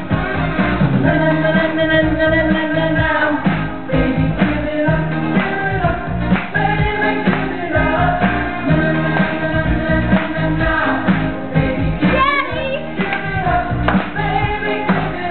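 A song playing, with sung vocals over a steady beat.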